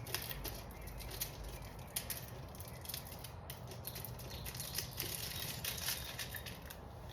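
Light, irregular rustling and small clicks from handling parts and packaging while a new oil filter is readied.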